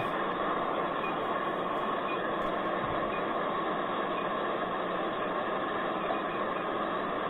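Steady mechanical hum and hiss with a few faint steady tones running underneath, even in level, with no clicks or rhythm.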